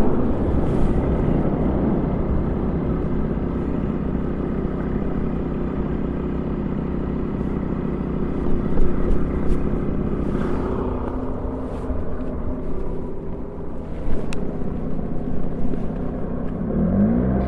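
Honda Gyro scooter engine running while riding, with road and wind noise, the engine speed rising near the end.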